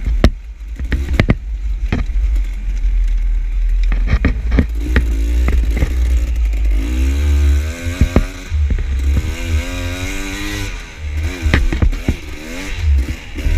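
Dirt bike engine revving up and down over and over, with sharp knocks and clatter throughout and a heavy low wind rumble on the microphone.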